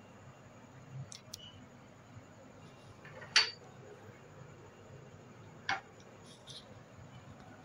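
Quiet room tone broken by a few sharp clicks and taps of dishes or utensils on a kitchen countertop, the loudest about three and a half seconds in and another near six seconds.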